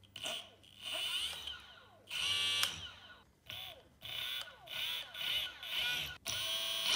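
2000 W 48 V e-bike conversion kit's electric motor, lying loose on the floor with no load, spinning up and down as the twist throttle is turned. It gives a whine that rises and falls in pitch in a series of short bursts.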